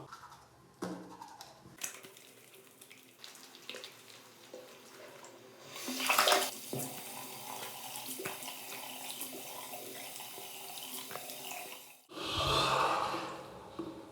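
Water running from a tap into a sink, surging loudest about six seconds in and again near the end.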